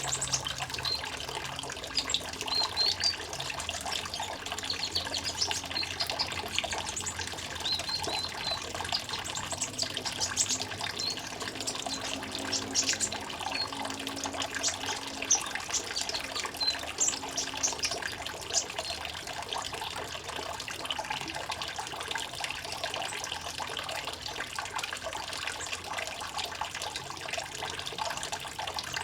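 Water trickling steadily, with small birds chirping in short, scattered high calls over it.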